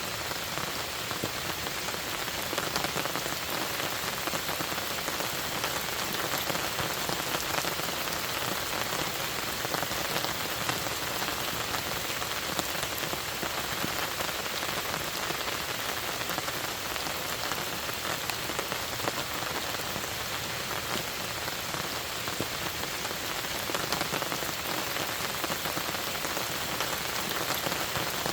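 Steady rain falling on a lake and its surroundings, a dense even hiss with many small drop ticks through it.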